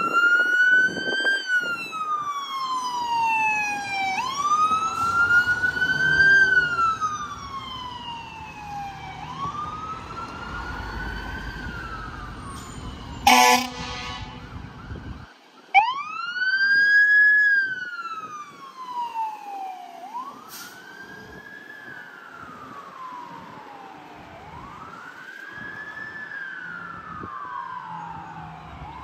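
Fire department electronic siren on wail, rising and falling slowly about every four to five seconds. A short, loud air-horn blast cuts in about halfway through.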